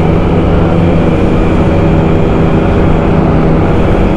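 Engine of a small white-plate motorcycle running at a steady pitch while riding, over wind and road noise.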